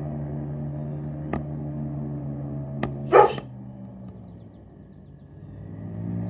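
Airboat engine and propeller running with a steady drone that fades down after about four seconds and swells back up near the end. A dog barks once about three seconds in, the loudest sound, just after two sharp clicks.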